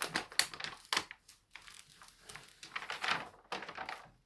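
Crinkling and rustling of a large diamond painting canvas being handled, in a run of uneven rustles.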